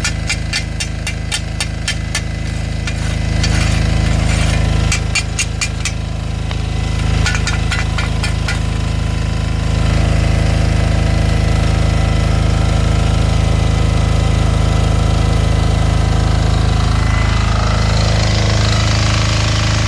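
Diesel generator running steadily with a hard, clattering note. Over the first several seconds a rapid, regular ticking rides on top of it. About ten seconds in the running gets louder, and near the end the pitch shifts upward.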